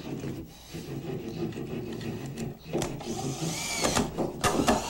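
Cordless drill driver running, driving a 3-inch drywall screw through a 2x4 into the edge of a wooden door. The motor whirrs steadily and pauses briefly about halfway through, with a few knocks near the end.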